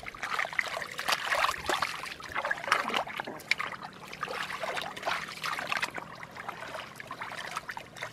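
Hands groping and sloshing through shallow muddy water, with irregular small splashes and wet slaps.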